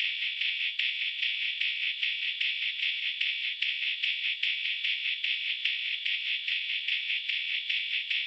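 Music leaking from a pair of headphones: a thin, tinny sound with only the treble left and no bass, pulsing to a steady beat.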